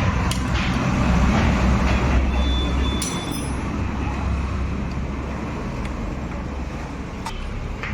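Steady low rumble of passing road traffic, swelling about a second in, with a few sharp clicks and a brief high squeak about three seconds in.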